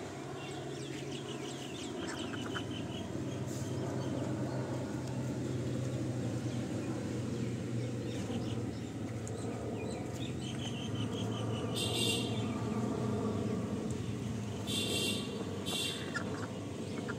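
Poultry calling: repeated short chirping calls, with a few louder, harsher calls about twelve and fifteen seconds in, over a steady low hum.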